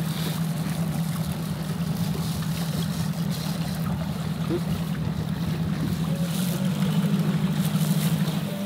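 Boat motor running steadily, a low even hum, with wind and water noise over it; it grows a little louder in the second half.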